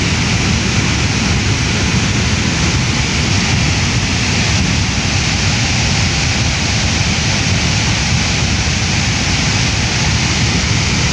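A muddy river in flood, overflowing its banks: a loud, steady rushing of fast, turbulent water with a deep rumble underneath.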